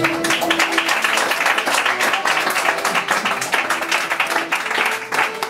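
Audience applauding with many hands clapping, over a quieter musical accompaniment.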